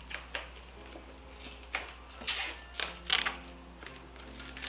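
Plastic shrink-wrap being torn and peeled off a paperback book, crackling in a string of short, sharp crinkles at irregular intervals.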